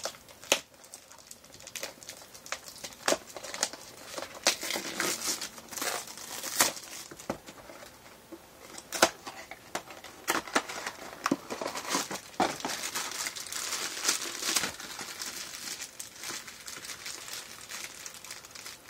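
A cardboard blind box being opened by hand, and the crinkly foil bag inside crumpled and torn to get a small vinyl figure out: an irregular run of crinkles and sharp packaging clicks.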